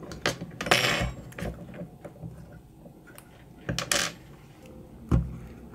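Tweezers and a flat tool clicking and scraping on the plastic underside of a computer mouse while its stuck-on foot pads are pried off. There is a scratchy rasp about a second in, another just before four seconds, scattered small clicks, and a knock near the end.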